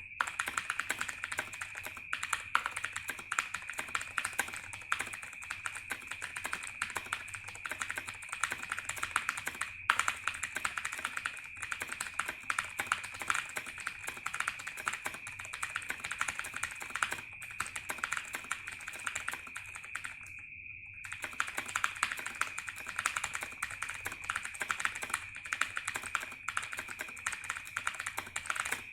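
Fast typing on a mechanical keyboard with clicky Razer Green switches: a dense, continuous run of sharp key clicks, with a brief pause about twenty seconds in. A steady high whine runs underneath.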